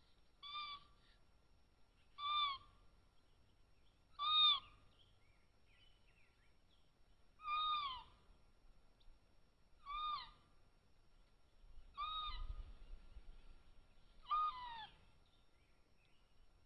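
Cougar kitten whistling: seven short, clear chirping calls, about one every two seconds, each rising slightly and then falling away in pitch.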